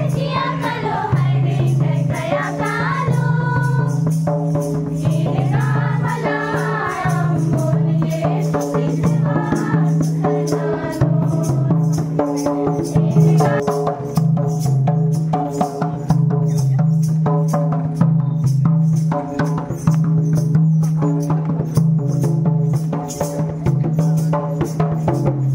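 A song with several voices singing over a steady low bass and a quick, rattling high percussion beat.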